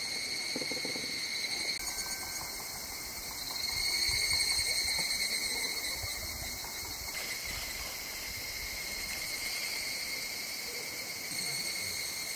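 A steady chorus of summer insects, shrilling without a break at a few high pitches.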